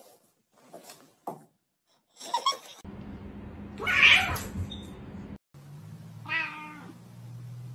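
Domestic cats meowing: a loud, drawn-out meow about four seconds in and a shorter meow about two seconds later, after a few faint short sounds at the start.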